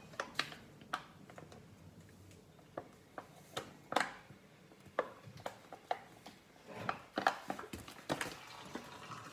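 Scattered light taps, clicks and knocks of things being handled at a kitchen table, in a cluster near the end.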